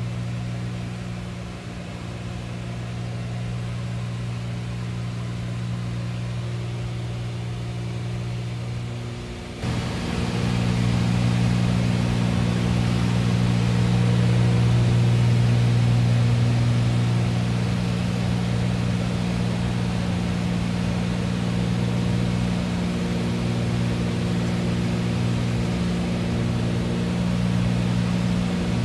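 Cabin sound of a Cessna 310's twin piston engines and propellers: a steady drone with a low hum. About ten seconds in it turns abruptly louder, with more rushing air hiss, and then holds steady.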